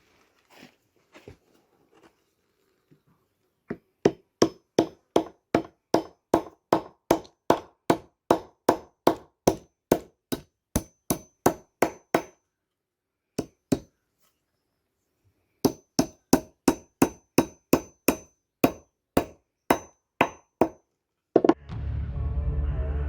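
Hammer blows on metal in a steady rhythm, about three a second, each with a short high ring. They come in two runs with a pause of a few seconds between them.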